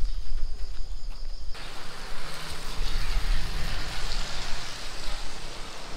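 Wind rumbling on the microphone, then from about a second and a half in a steady hiss of rain falling.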